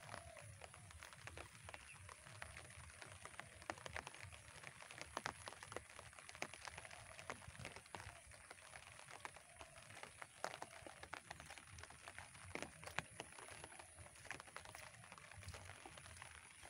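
Faint footsteps on a wet dirt path, with scattered irregular clicks and taps.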